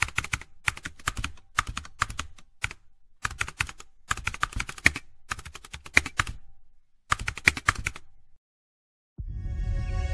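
Computer keyboard typing: rapid keystroke clicks in short irregular bursts that stop a little over eight seconds in. After a brief silence, music starts near the end.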